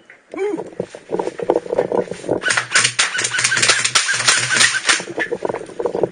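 Airsoft guns firing in rapid bursts, a fast run of sharp clicks over a low electric motor hum that starts and stops with each burst, from about two and a half seconds to about five seconds in. Before them come a short rising and falling shout and more shouting.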